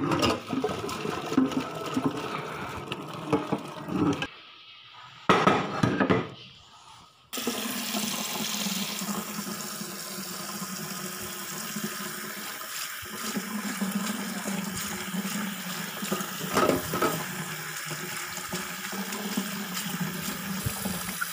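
Water and pasta poured from a pot into a metal colander in a sink, splashing in uneven spurts. From about seven seconds in, a kitchen tap runs steadily onto the drained penne in the colander, rinsing it.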